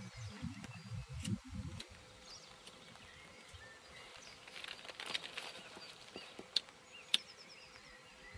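Faint farmyard outdoor background: a low rumble in the first two seconds, then a quiet stretch with faint high bird chirps and two sharp clicks near the end.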